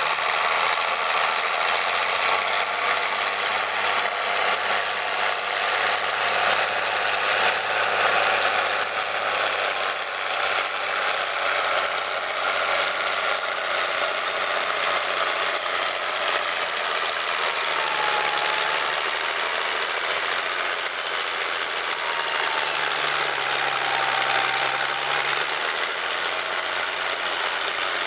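Case IH 956 XL tractor's six-cylinder diesel engine running under load as it pulls a reversible plough through mud, a steady engine noise whose pitch shifts briefly twice in the second half.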